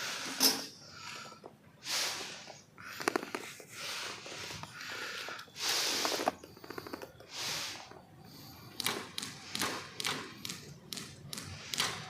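A person breathing hard in separate gusts, then quick footsteps with sharp taps near the end.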